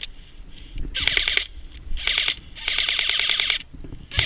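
Airsoft rifle firing full-auto: four bursts of rapid, evenly spaced mechanical clacks, the third and longest lasting about a second.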